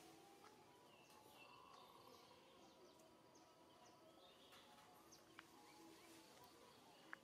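Near silence: faint outdoor ambience with scattered faint bird chirps and two small clicks in the second half.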